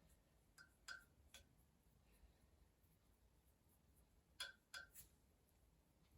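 Near silence with a few faint clicks and light taps from a paintbrush working primer onto the mower's metal parts: three around the first second, three more a little past four seconds in.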